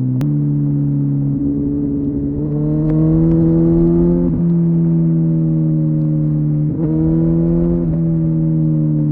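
Kawasaki ZZR 1400 inline-four motorcycle engine with a Delkevic exhaust, running under load. Its pitch climbs slowly and drops sharply twice, about four seconds in and again near the end, as it changes up a gear.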